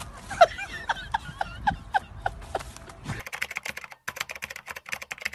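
Quick, falling, laugh-like vocal sounds, about four a second. About three seconds in they give way to a fast run of typewriter-style key clicks, a sound effect as text types onto the screen.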